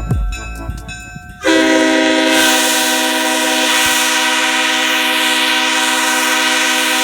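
Nathan Airchime K5HL five-chime locomotive air horn, a first-generation horn with a sandcast two-piece 1L bell, sounding one long steady chord that starts abruptly about a second and a half in, with a hiss of air over it. The pitch holds level throughout, with no rise or fall.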